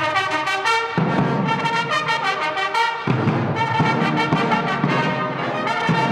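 Mounted military brass band playing, tubas and other brass holding sustained chords with a heavy low attack every couple of seconds.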